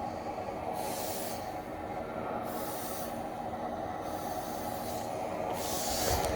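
Cough assist machine running with a steady motor hum, with three short rushes of air about two to three seconds apart as it cycles air in and out of the airway.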